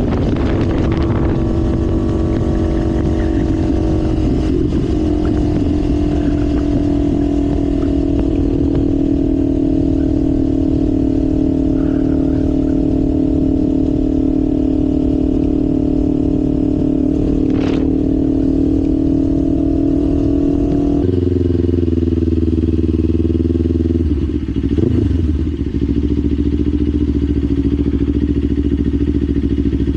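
Kawasaki Ninja 500's parallel-twin engine on the move, rising in pitch as it accelerates at the start, then holding a steady cruising note. About two-thirds of the way through the engine note shifts and a deeper drone comes in.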